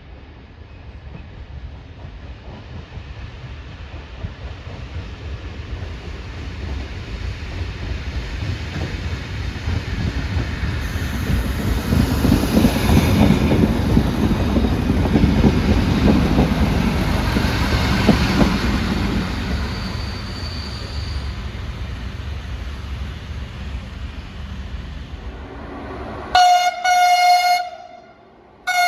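A train approaching and passing, its rumble and wheel noise building to a peak about halfway through and then fading. Near the end the rumble cuts off abruptly, and a train horn gives a blast of about a second and a half, then a shorter one.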